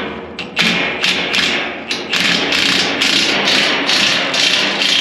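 Rapid hammer blows on metal, about three a second in a steady run, as a dozer's old bushing is worked loose.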